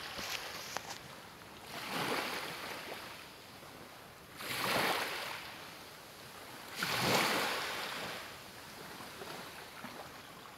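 Ocean waves breaking, three surges a little over two seconds apart, each rising quickly and washing away into a steady hiss.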